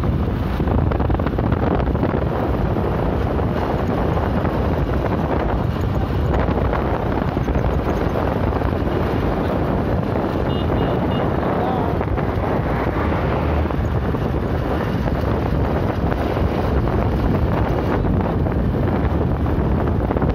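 Wind buffeting a phone's microphone on a moving motorcycle, a steady rushing noise with a low rumble of the ride underneath.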